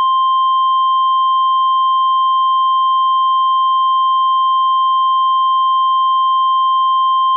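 Emergency Alert System / NOAA Weather Radio warning alarm tone for a tornado warning: a single loud, steady, high-pitched tone held without a break.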